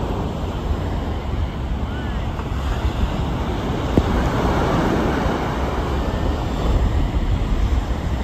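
Ocean surf breaking and washing up the beach, with wind buffeting the microphone as a low rumble underneath. The surf swells about halfway through.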